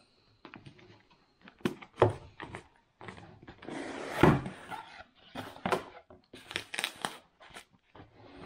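Cardboard box being handled and opened by hand: irregular taps, clicks and scrapes of the card as it is turned over and the lid flaps are folded back, with a longer scraping rustle about four seconds in.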